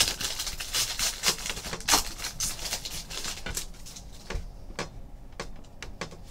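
Trading card pack being handled and its wrapper crinkling for about three seconds, then a few separate sharp clicks as the cards are flipped through by hand.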